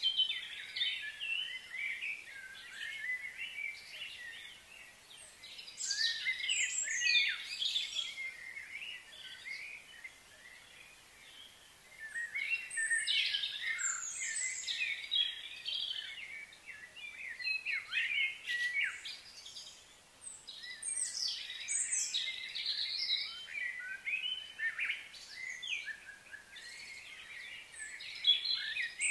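Small birds chirping and calling in several bouts of quick, high chirps, with quieter stretches of steady outdoor background hiss between them.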